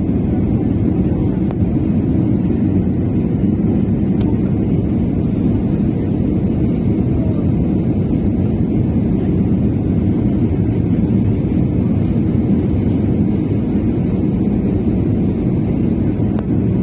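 Steady low roar of an airliner's engines and rushing air, heard from inside the passenger cabin during the descent for landing.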